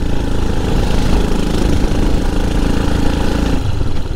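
Royal Enfield Himalayan's single-cylinder engine running steadily under way up a lane, with wind and road noise. The engine note changes shortly before the end.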